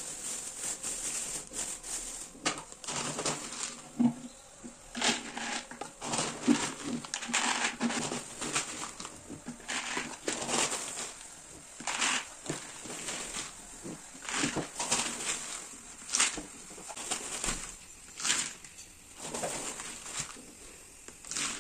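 Dry dog kibble being scooped out of a plastic bag and poured into a clear pet-food jar. The plastic bag crinkles and the kibble rattles and clatters in irregular bursts.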